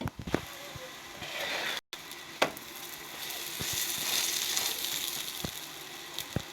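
Food sizzling on a hot pan, with scattered light clicks and knocks of cookware. The sizzle swells and stays steady through the middle of the stretch.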